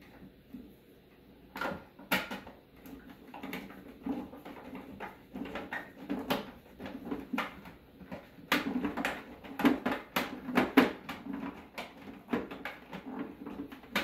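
Irregular clicks, taps and scrapes of a screwdriver and hands driving screws into the plastic housing of a refrigerator ice maker. They start a second or two in and are busiest and loudest from about eight to eleven seconds in.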